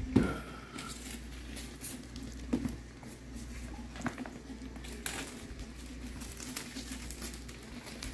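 Clear plastic shrink wrap crinkling and tearing as it is pulled off a cardboard drone box, in scattered crackles, with a sharp knock from the box being handled just after the start.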